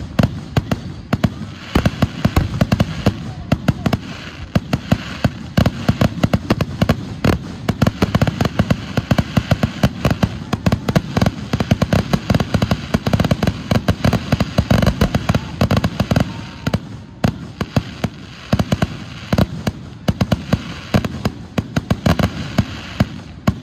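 Aerial fireworks finale: a dense, continuous barrage of shell bursts and reports, many a second without a break.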